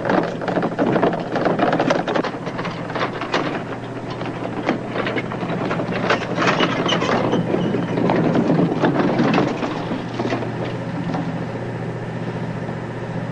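Engine idling with a steady low hum, under irregular clattering and rustling of a heavy object being handled and covered with cloth.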